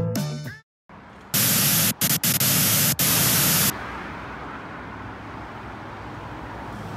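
A burst of loud TV-static white noise, broken by a few very short dropouts, lasting about two seconds and cutting off abruptly: an edited transition effect. After it comes a steady, quieter street ambience.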